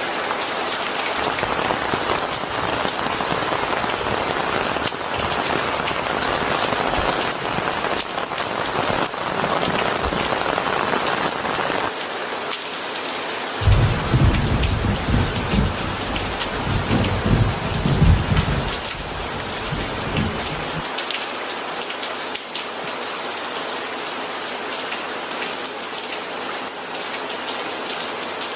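Steady rain falling on a surface. About halfway through, a low rumble of thunder rolls for several seconds, with its loudest peaks near the start and end of the roll, then fades out.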